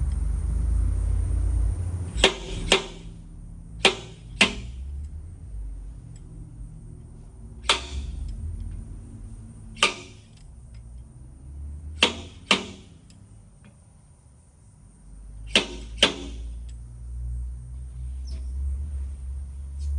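Sharp snaps from glue-pull paintless dent repair on a motorcycle fender: cold glue tabs being pulled and popping free, mostly in pairs about half a second apart, every few seconds.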